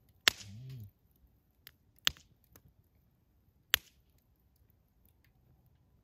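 Wood campfire popping: three sharp cracks, the first just under a second in, then about two seconds in and near four seconds, with a few fainter snaps between them.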